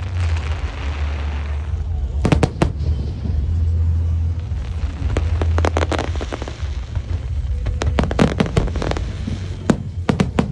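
Large fireworks display going off: a continuous deep rumble of shell bursts under clusters of sharp, rapid bangs, with a crackling hiss in the first couple of seconds.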